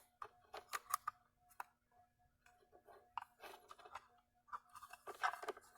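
Plastic pry tool prying at the plastic case of a wall plug charger: faint, irregular clicks and scrapes as it works into the seam.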